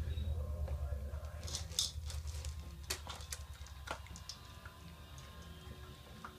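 Siberian husky puppies munching food out of a stainless steel bowl: irregular crunching, smacking and sharp clicks against the metal, over a steady low hum.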